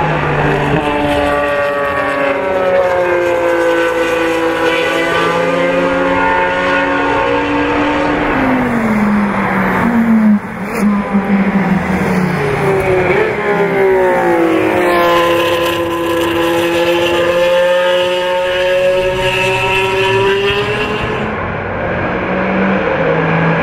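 Ferrari 312PB's flat-twelve racing engine at high revs. Its pitch falls for several seconds as it comes off the throttle, then rises again as it accelerates hard and holds a high, steady note.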